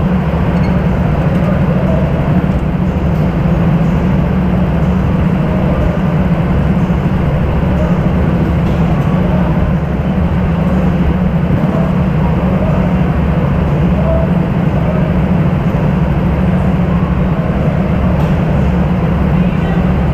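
Go-kart engine running steadily at close range: a loud, even low drone with a noisy haze above it and no clear revving.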